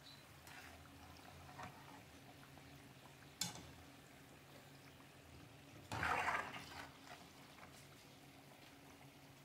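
Kabalagala (banana and cassava-flour pancakes) deep-frying in hot oil, a faint steady sizzle and bubbling. A sharp click about three and a half seconds in, and a brief louder burst of noise around six seconds in as the slotted spatula works in the pan.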